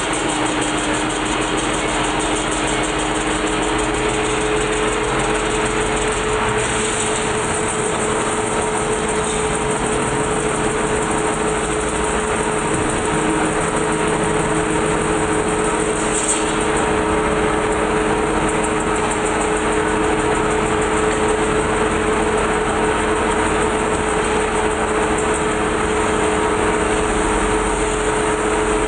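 Metal-spinning lathe running at speed while a large sheet-metal disc is worked with a long lever tool. It makes a steady, loud machine drone with a held hum over a dense rushing noise.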